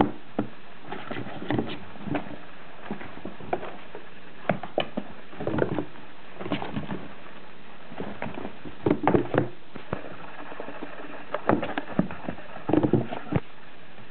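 Kittens scampering and scuffling around a cardboard box: irregular patter, scratches and soft thumps of small paws on cardboard and cloth, coming in short clusters with gaps between.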